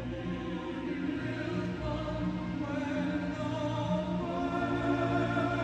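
Music: voices singing long held notes over a steady low bass, the chords changing every second or so.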